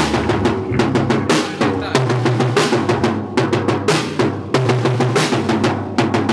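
A band playing loudly: a drum kit hit hard and often, with snare and bass drum, over a repeating electric bass line.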